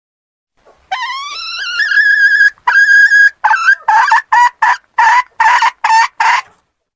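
Red junglefowl hen calling: a long cry that rises in pitch and is held, then a run of about eight short, clipped cackling notes.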